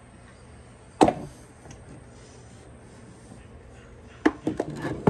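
Hand-work handling noise: a single sharp knock about a second in, then a quick run of knocks and rubbing near the end as a rubber coolant hose is worked into place around metal engine parts.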